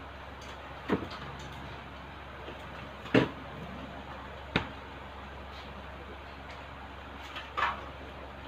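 Four short, sharp knocks over a steady low hum, the loudest about three seconds in.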